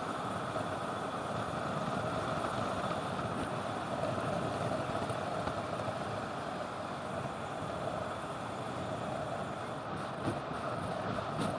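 Steady rush of wind over the camera microphone, mixed with road-bike tyres rolling on asphalt, during a fast downhill descent.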